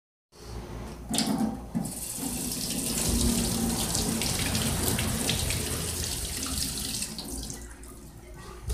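Kitchen tap running onto a mango held under it in a stainless steel sink, the water splashing off the fruit and the steel as it is rubbed clean. The water starts after a moment of silence and dies away near the end as the tap is shut off.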